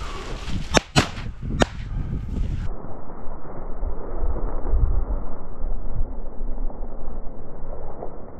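Three sharp shotgun blasts within about a second at a flushed pheasant. Then the sound suddenly turns dull and muffled for the rest.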